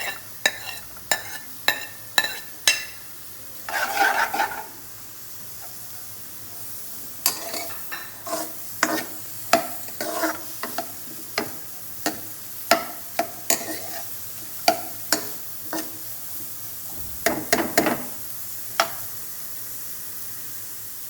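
Chopped onions sizzling in hot oil in a pan, with a steady frying hiss, while a spoon stirs them and knocks against the pan in runs of sharp taps.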